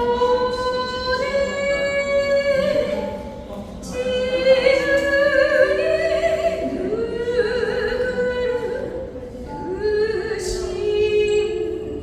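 A high voice singing long held notes with vibrato, gliding between pitches, over plucked lyre strings.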